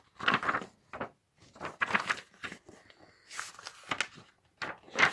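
Pages of a paperback book being flipped and turned by hand: a series of short papery rustles and flaps, about half a dozen, with brief quiet gaps between them.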